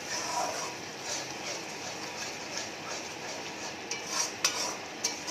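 Metal spatula stirring and scraping a thick frying masala paste around a metal kadai, with a few sharp clicks of the spatula against the pan about four to five seconds in. This is the masala being fried down until the water dries off and the oil starts to separate.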